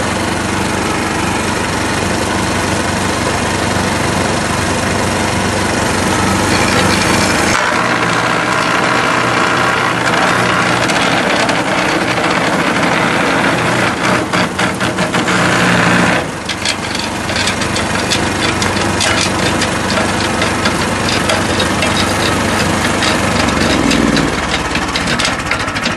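Powerhorse 420cc wood chipper/shredder running, its gas engine note shifting under load as material is fed through, with a dense crackling rattle of wood being chipped and shredded through the second half.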